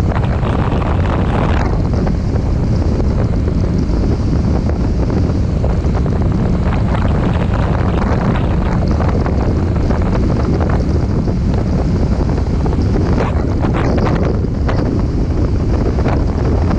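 Motorcycle riding at highway speed: loud, steady wind rushing over the microphone, with the engine's drone underneath.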